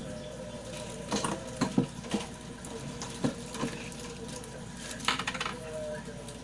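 Small metal objects clicking and clinking as they are handled, in a few scattered taps with a brief cluster about five seconds in.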